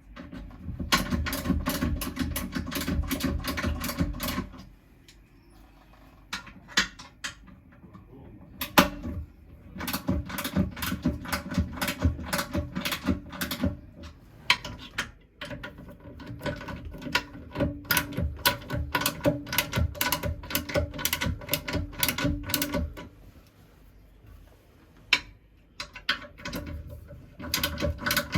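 Rapid ratcheting clicks in several runs of a few seconds each, with short pauses between them, from a hand ratchet being worked back and forth.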